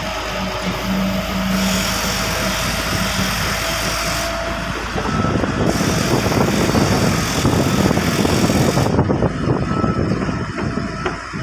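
Steady mechanical hum of an engine, joined about halfway through by a louder, even rushing noise.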